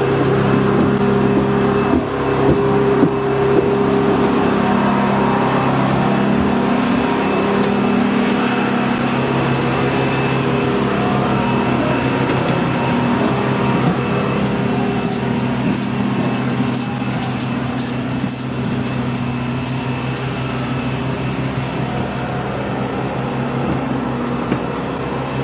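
Steady machine hum with several held low tones, easing slightly toward the end, with a string of faint clicks around the middle.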